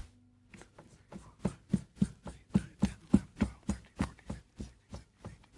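A marker writing on a whiteboard: a quick series of short strokes and taps on the board, about four a second.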